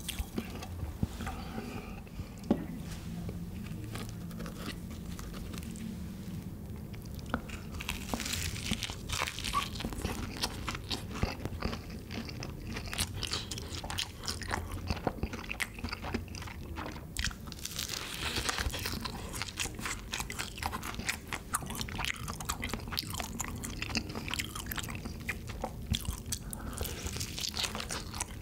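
Close-miked eating of Bburinkle seasoned fried chicken: bites into the crispy coating, then steady crunching and chewing full of fine crackles.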